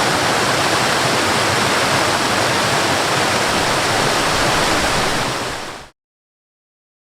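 Waterfall rushing with a steady, even roar of falling water. It fades out quickly about six seconds in and cuts to total silence.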